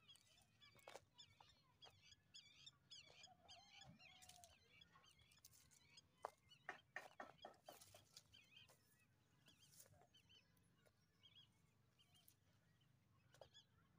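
Faint farmyard ambience: small birds chirping over and over for the first few seconds, and one short honk-like call about three to four seconds in. A run of sharp taps or clicks follows around six to eight seconds in.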